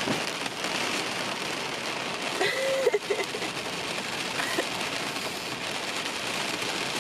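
Steady rain falling on a car's roof and windows, heard from inside the cabin as an even hiss.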